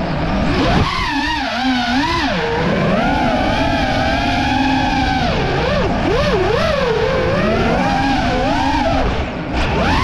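FPV freestyle quadcopter's brushless motors and propellers whining, the pitch rising and falling constantly with the throttle as it flies, heard from the onboard camera. A little after nine seconds the throttle is cut briefly and the whine drops away, then picks up again.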